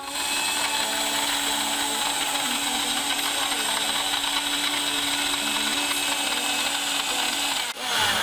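Countertop electric blender running steadily, blending mint leaves, lime juice and simple syrup into a frothy liquid. It cuts off near the end.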